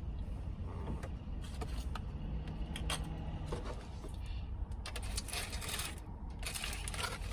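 Steady low rumble of an idling vehicle engine, with scattered small clicks and rustles of things being handled.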